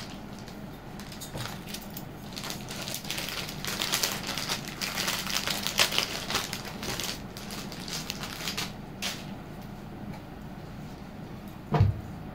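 Jewellery and its packaging being handled: rustling with many small, light clicks, busiest in the middle, then one low thump near the end.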